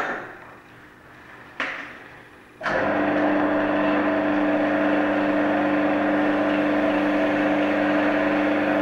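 A brief knock about a second and a half in, then a wood lathe's motor is switched on and runs steadily at speed, a constant hum and whine.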